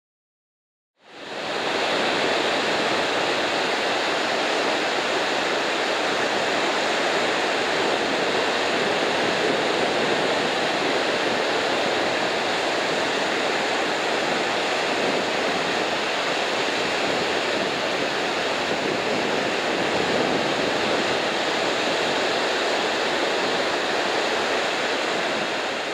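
Ocean surf breaking on a beach, a steady, even wash of noise that fades in about a second in and fades out at the end.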